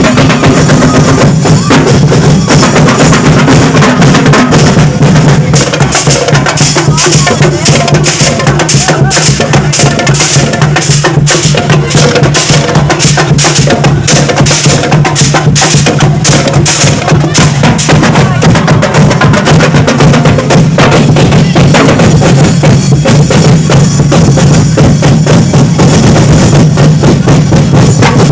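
Loud music driven by a fast, steady drum beat with a constant low bass note underneath.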